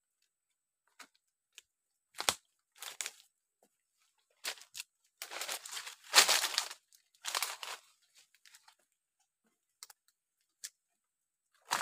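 Dry leaves, fronds and twigs crunching and rustling as someone pushes through dense dry undergrowth. It comes in irregular bursts, the longest and loudest about halfway through.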